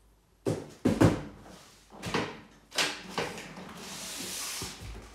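A few short knocks and thuds, then a longer scraping hiss about three and a half seconds in as a taped cardboard box is pulled off a stack of boxes, ending in a low thud.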